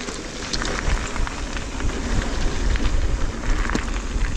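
Mountain bike descending a loose slate trail: tyres crunching over stones, with many sharp rattles and clicks from the bike, over a low wind rumble on the helmet camera's microphone.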